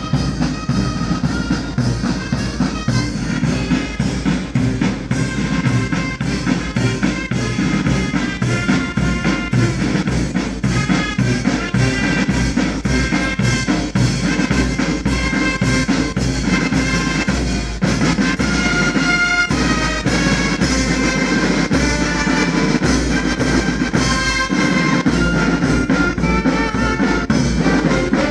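Marching band playing in the street: a drum section with bass and snare drums beats a steady march while saxophones and brass horns play the tune.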